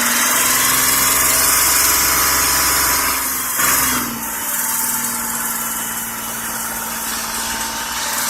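A 2005 Kia Sorento engine running with lifter tapping that an engine flush has not cured. It eases off a little about four seconds in.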